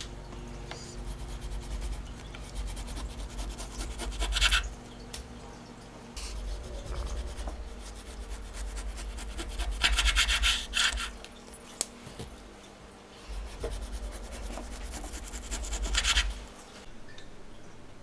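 Hand food preparation: rhythmic rubbing and scraping strokes, with louder rasping passes about four, ten and sixteen seconds in, stopping shortly before the end.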